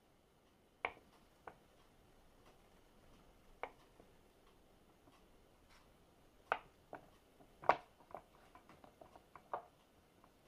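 Chef's knife cutting a block of mozzarella on a wooden cutting board, the blade knocking on the board in sharp separate taps. The loudest knock comes just past the middle, followed by a run of quicker small taps.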